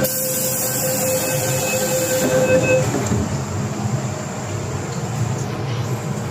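MTR M-Train door-closing warning tone, one steady pitched beep-tone that stops about three seconds in, with a hiss at the start. Then the train's rumbling running noise as it moves off.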